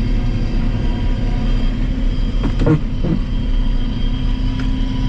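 A large diesel engine of farm machinery running at a steady speed, giving an even hum.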